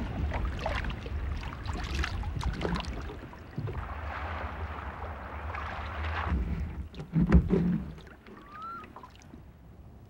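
Net being hauled by hand over the side of a rowboat: water splashing and dripping, with the wet net and trout knocking against the boat and wind rumbling on the microphone. One loud knock about seven seconds in, then quieter.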